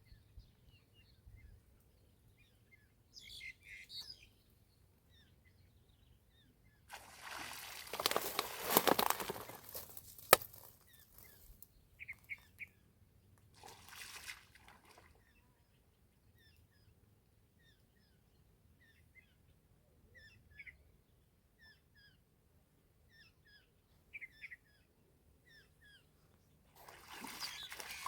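Small birds chirping in short scattered calls, with several bursts of splashing water, the longest and loudest about eight seconds in.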